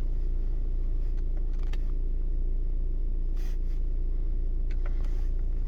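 VW Tiguan engine idling with a steady low rumble, with a few faint clicks over it.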